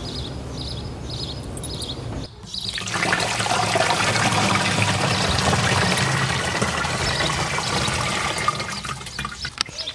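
Liquid iron solution (ferrous sulfate and ammonium sulfate dissolved in water) poured from a bucket into a backpack sprayer tank through its mesh strainer: a steady splashing gush that starts about three seconds in and eases off near the end.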